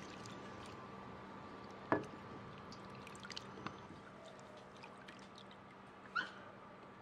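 Raw shrimp being washed by hand in water in a stainless steel bowl: faint swishing and dripping of water, with small clicks and two sharper knocks against the bowl, one about two seconds in and the louder one near the end.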